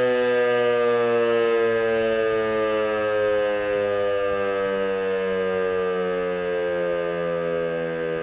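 DS977 electromechanical civil-defence siren sounding during a siren test, its tone falling slowly in pitch.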